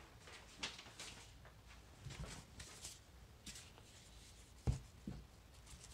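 Faint rustling and scraping of a cardboard mailer being handled and turned over, with small clicks and one sharp knock a little before the end.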